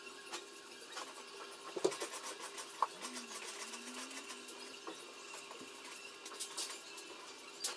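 Quiet room tone with a steady hum and scattered faint clicks and ticks, with two sharper knocks just under two seconds in and a little before three seconds in.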